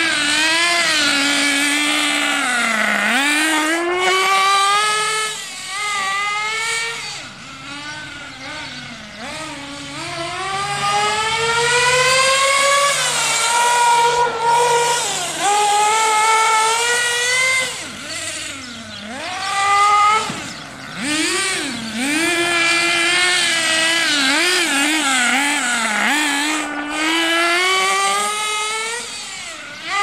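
HPI Trophy 3.5 nitro R/C buggy's small two-stroke glow engine running at high revs, with its whine climbing on the straights and falling off into the corners, over and over. Now and then it drops away suddenly as the throttle is lifted.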